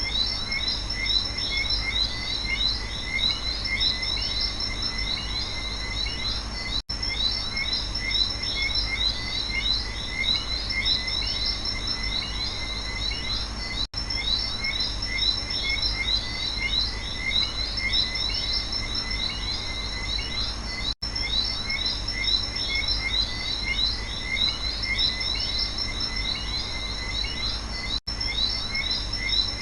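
Night rainforest chorus of frogs and insects: dense, rapid chirping in two high pitch bands over a steady low rumble. The sound cuts out for an instant about every seven seconds, where the recording loops.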